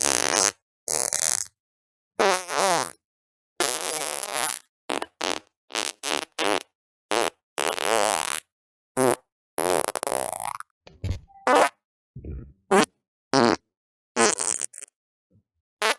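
Fart sounds in quick succession: about twenty separate farts, some short pops and some drawn out to nearly a second, each with a gap of silence between. Many have a pitch that wavers up and down.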